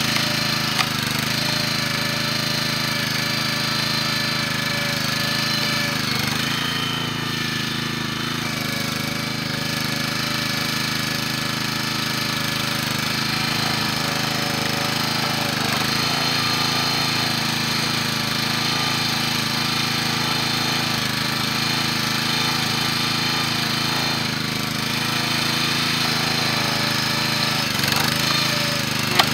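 Small gas engine of a hydraulic log splitter running steadily, its note dipping and recovering a few times as it takes load. There is a sharp knock just after the start and another near the end.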